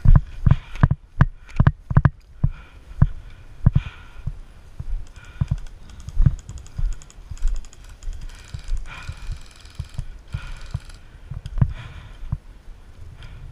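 Footfalls of a person moving fast over a dry grassy field, heavy thumps jolting the worn camera, about two to three a second at first and then slower and more spaced. Dry grass and brush swish against the body partway through.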